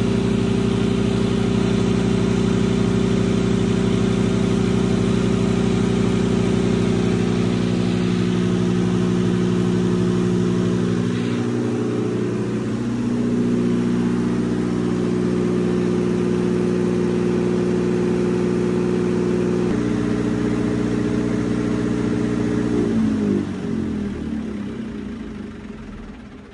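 MTU Onsite Energy diesel standby generator running steadily, then shutting down about 23 seconds in, its pitch falling and the sound fading as the engine coasts to a stop.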